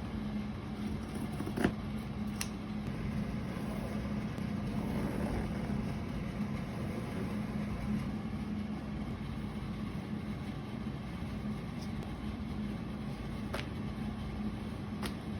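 A steady machine hum with a low, even drone, broken by a few short sharp clicks.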